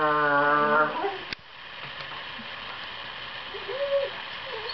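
Borzoi puppy's long, low, drawn-out play vocalization at a steady pitch, which stops about a second in. Near the end comes a brief, higher whine. This is the 'sweet-noise' of play-fighting, which signals that the snarling face is not meant seriously.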